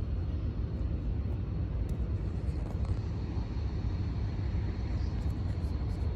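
GE Dash 8-40BW diesel locomotive's V16 engine running with a steady low rumble as the locomotive moves slowly.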